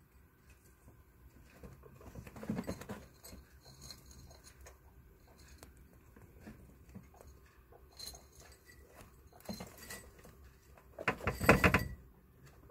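Guinea pigs shuffling and feeding at a dish in their cage: scattered small knocks, rustles and clicks, with a louder rattling clatter about a second before the end.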